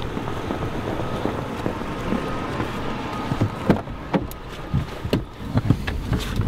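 Pickup truck running, with wind noise on the microphone, then several sharp knocks and clunks about halfway through as people climb into the cab and the door is handled.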